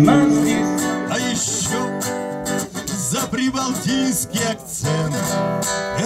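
Acoustic guitar playing: a held chord dies away over the first second, then single picked notes of an instrumental introduction follow.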